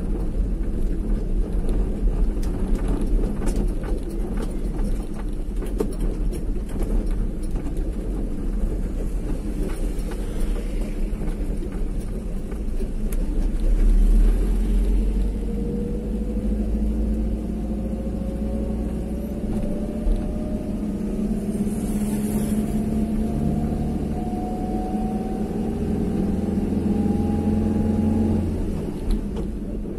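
A moving vehicle's engine running with a steady low road rumble; from about halfway its pitch climbs slowly as the vehicle gathers speed.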